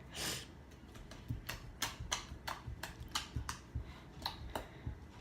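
Slime being poked with fingers, giving a quick squishy swish and then a run of sharp, irregular clicks and pops, about two or three a second, as trapped air bubbles pop.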